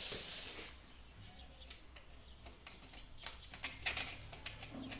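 Scattered light clicks and scrapes of foam-filled aluminium roller-shutter slats and a metal end piece being handled and fitted together by hand.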